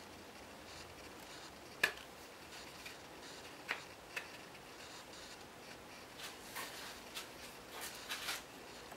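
Sparse sharp clicks and light knocks of a shop-built wooden hand router plane being handled, the loudest click about two seconds in. Near the end a quick run of light scrapes and taps comes as the plane is set back down on the wooden workpiece.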